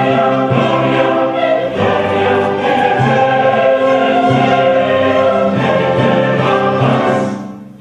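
Intro theme music: a choir singing long held chords that change every second or so, fading out near the end.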